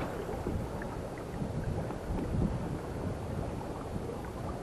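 Steady wind rumble on the microphone, with light water sounds around the kayak boat.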